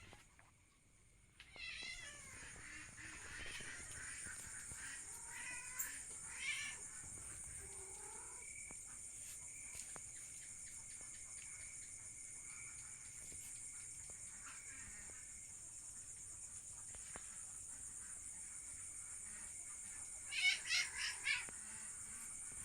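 An animal calling in short wavering cries, several times early on and louder in a quick cluster near the end, over a steady high-pitched whine.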